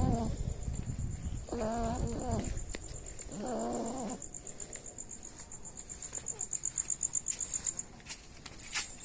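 Snoring in deep sleep: two pitched, wavering snores about two seconds apart in the first half. A cricket chirps steadily and high-pitched in the background.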